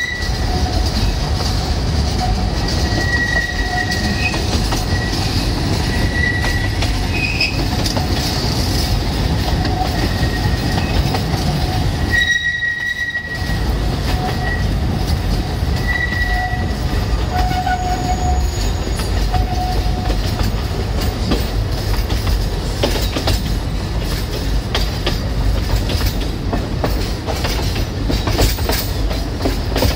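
Alishan Forest Railway narrow-gauge train running through a curve, heard from a carriage window: a steady low rumble of wheels on rail with short high-pitched wheel squeals coming and going.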